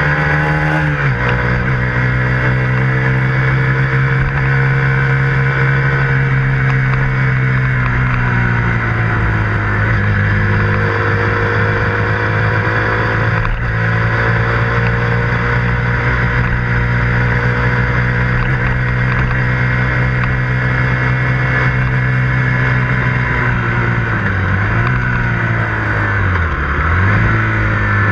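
KTM 125 Duke's single-cylinder four-stroke engine running under way, heard from on board the motorcycle. The engine note falls sharply about a second in, then holds fairly steady with slow rises and falls, and dips twice near the end.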